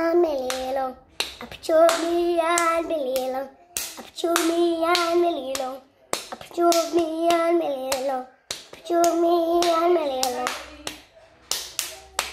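A young boy singing a wordless tune in about five short phrases, each a held note that steps down in pitch at its end. Hand claps and taps sound between and over the phrases, quickening near the end.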